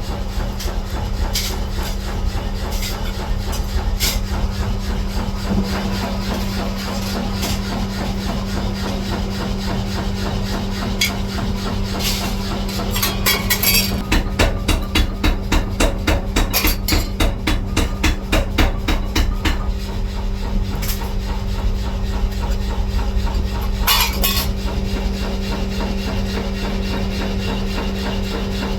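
Metalworking workshop with a steady machine hum, scattered metal knocks, and a run of rapid hammer blows, about four a second, lasting several seconds in the middle.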